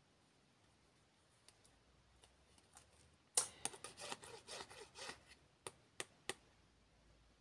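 Paper playing cards being slid and rearranged in the hand, card against card: a few faint ticks, then from about three and a half seconds in a run of rubbing, scraping and small snaps that lasts about three seconds.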